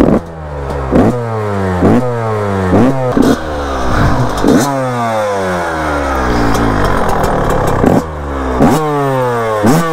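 2001 Yamaha YZ125 two-stroke motocross engine revved in repeated throttle blips, each a sharp rise in pitch followed by a slow fall back toward idle. It is a warm-up after a cold start on choke.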